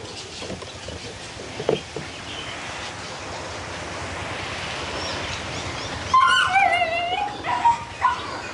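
A dog whining in a wavering pitch for about a second and a half, about six seconds in, with a couple of shorter whines after it. Earlier there are a few light clicks and knocks.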